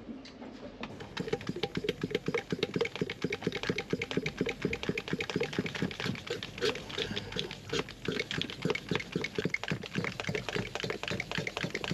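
A small hand fuel pump worked in quick, even strokes, making a steady run of clicks several times a second. It is pumping fuel through a blocked engine fuel line to clear it and fill the fuel filter.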